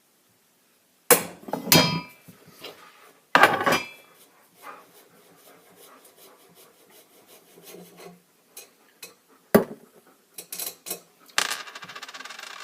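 Metal tools clanking on a rifle as a wrench is fitted to and worked on its muzzle brake: a few loud knocks with a short metallic ring in the first few seconds, then light scraping and clicks, a sharp click later, and a quick burst of fast clicking near the end.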